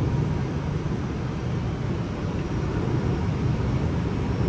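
Steady flight-deck noise of an Airbus A320 on short final: a constant low rumble of airflow and engines with a hiss over it, unchanging throughout.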